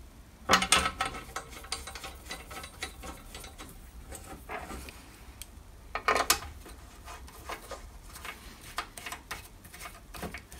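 Hex (Allen) key turning socket-head cap screws into an aluminium plate, a run of light metallic clicks and ticks, with louder clatters about half a second in and about six seconds in.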